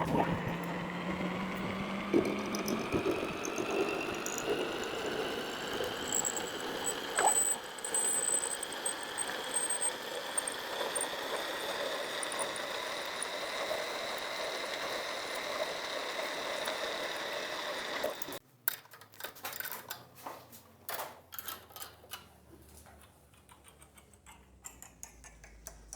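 A machine running with a steady whine made of several tones that slowly rise in pitch, stopping abruptly about 18 seconds in; scattered clicks and knocks follow.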